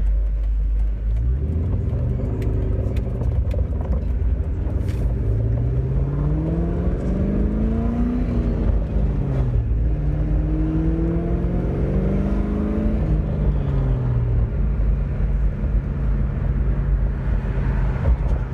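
2001 Ford Mustang with a new aftermarket exhaust accelerating hard. The engine note climbs for several seconds, drops back, climbs again, drops, and then settles into a steady drone for the last few seconds.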